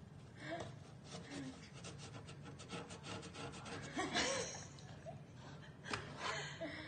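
Scratching and scraping on cardboard as a domestic cat paws and bites at a small toy poking through a gap in a box, with a run of quick scratches in the middle and sharper scrapes about four and six seconds in.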